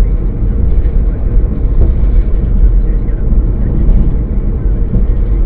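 Car interior noise picked up by a dashcam microphone while driving: a steady low rumble of road and engine noise with a faint constant hum.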